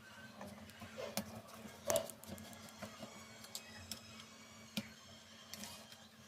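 Scattered light clicks and taps from handling small objects, the loudest about two seconds in, over a steady low hum.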